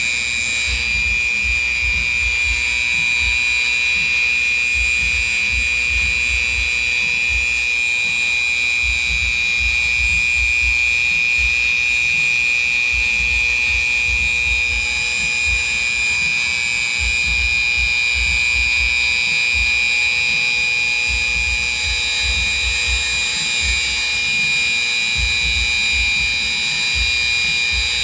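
Handheld electric grinder-sander running at a steady speed with its pad on an aluminium fuel tank, making a constant high-pitched motor whine over an uneven low rumble.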